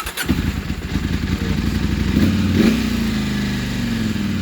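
KTM 790 Adventure's parallel-twin engine starting on the electric starter and catching at once. It revs up briefly about two seconds in, then settles to a steady idle. The bike has an intermittent hard-starting fault that a new MAP sensor has not cured.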